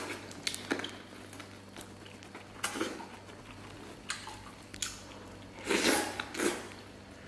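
Close-up eating sounds: biting and wet chewing of stewed beef, with squelching as a gloved hand dips the meat into a bowl of chili-oil sauce. Several separate loud moments come about a second apart or more, the biggest near the end, over a faint steady low hum.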